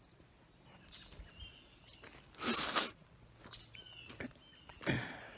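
A few faint, short bird chirps, with two brief rustling noises, the louder about two and a half seconds in and a second near the end.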